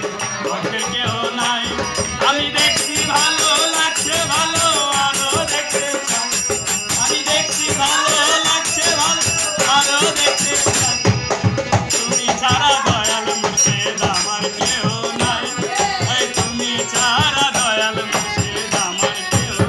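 Bengali folk devotional song (bichched gaan) sung by a group, led on harmonium, with hand clapping and a jingling percussion keeping a steady beat.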